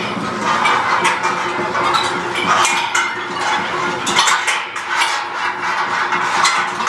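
Irregular metallic clinking and rattling, typical of harness carabiners and safety-line clips knocking against the cables and steel frame of a high ropes course as climbers move across it.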